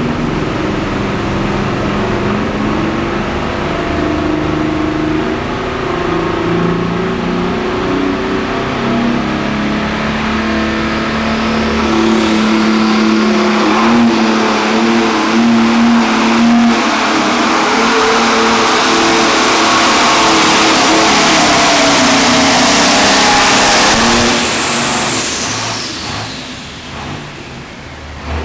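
Turbocharged diesel engine of a John Deere pulling tractor revving while hooked to the sled, then going to full throttle for the pull about twelve seconds in, with a high turbo whine rising over the engine. It is held for about twelve seconds, then the throttle is cut and the whine falls away near the end.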